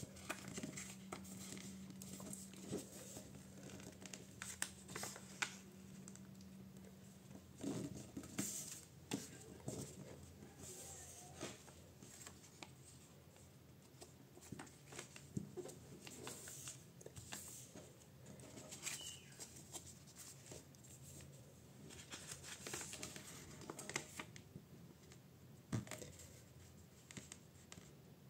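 A sheet of A4 printer paper being folded and creased by hand: crisp crackles, rustles and short sliding scrapes as fingers run along the folds, over a faint steady low hum.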